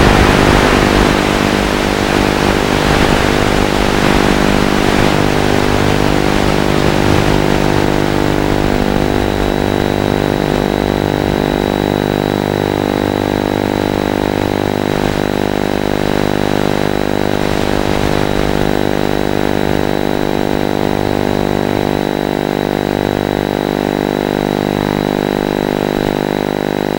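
FPV quadcopter's audio track: a loud rushing noise that dies away over the first several seconds as the craft comes down, leaving a steady, unchanging buzzing hum with a thin high whine.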